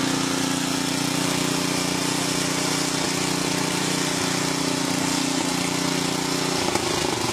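Honda CBX air-cooled inline-six motorcycle engine idling steadily, its note changing briefly near the end.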